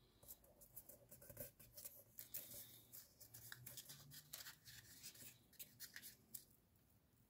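Paper being folded and creased by hand: a quick, uneven run of faint rustles and crinkles as the fingers press and smooth the fold.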